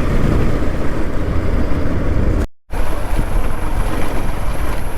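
Wind rushing over the microphone of a moving motorcycle, with engine and road rumble underneath. The sound drops out completely for a split second about two and a half seconds in.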